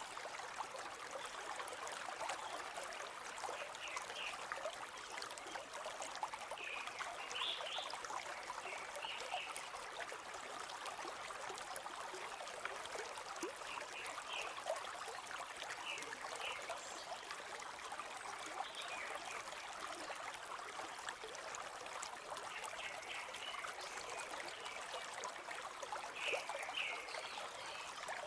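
River water flowing steadily over stones, a continuous babbling rush, with short high chirps now and then.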